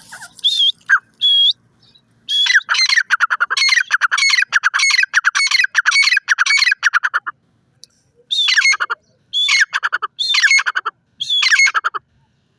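Grey francolin (teetar) calling loudly: two short notes, then a fast run of repeated shrill notes lasting about five seconds, then four shorter bursts of the same call.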